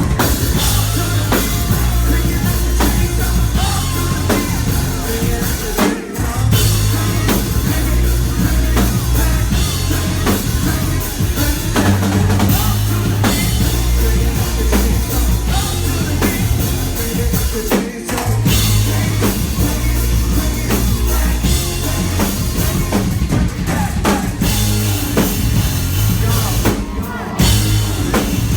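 Live rock band playing loudly, with heavy drums and bass and some singing; the whole band cuts out for a split second about six seconds in, again around eighteen seconds, and once more near the end.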